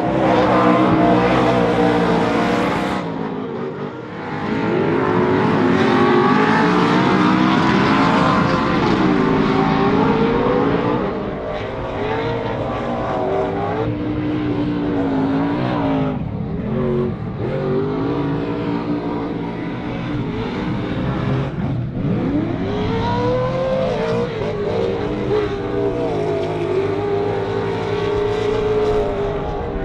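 Kroyer Racing V8 of an 800 hp Pro 2 short-course race truck running hard, its pitch climbing and falling over and over as it revs up, shifts and lifts off the throttle, with brief sharp drops about four seconds in and a couple of times later.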